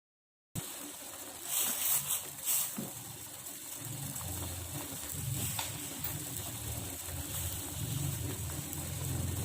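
Pot of water and herbs heating on a stove: a steady hiss, joined by a low hum that grows stronger about four seconds in, with a few clicks or knocks early on. The water is only warming and not yet boiling.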